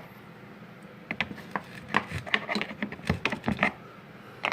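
A screwdriver prying a washing machine's gearbox loose from its mounting: a run of irregular clicks and scrapes starting about a second in and stopping shortly before the end.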